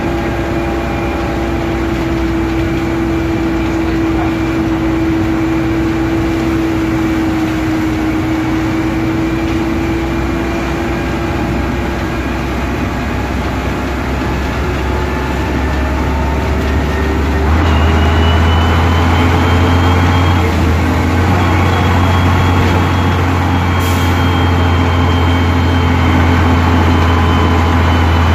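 Bristol VR double-decker bus's engine and drivetrain heard from inside the saloon as it drives along, with a steady whine that fades out around the middle. About two-thirds of the way through, the low engine note steps up and grows louder, and a higher whine joins in.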